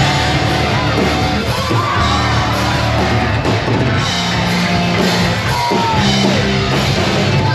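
Live rock band playing loud, with a yelled lead vocal over distorted guitars, bass and drums, recorded from within the audience.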